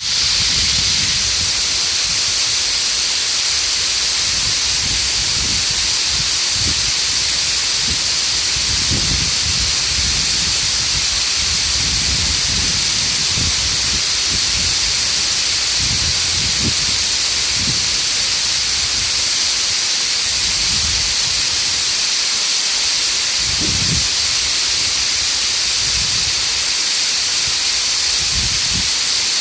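Waterfall rushing in a loud, steady hiss, with irregular low rumbles every second or two.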